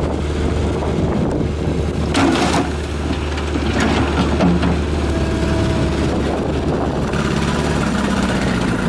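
Heavy construction machine's engine running steadily at a low, even pitch, with a brief louder noise about two seconds in.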